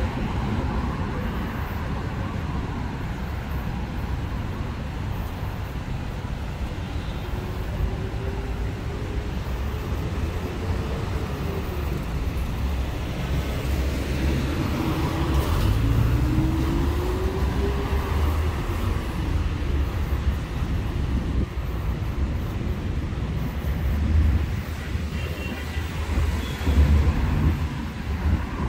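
Road traffic: a steady rumble of cars going by on a multi-lane road, with engine notes that rise and fall as vehicles pass in the middle.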